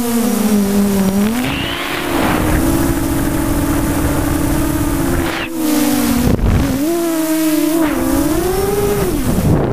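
Electric motors and propellers of an FPV aircraft heard from its onboard camera: a steady buzzing whine that rises and falls in pitch with the throttle, dropping sharply and coming back up a couple of times, over a rushing noise.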